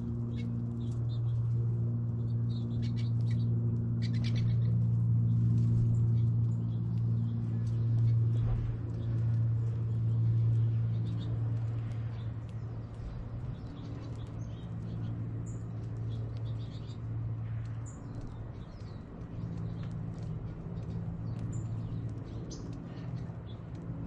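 Small finches chirping in short, high notes scattered throughout: American goldfinches at a thistle feeder. Under them runs a steady low mechanical hum, the loudest sound, which eases a little past the halfway point.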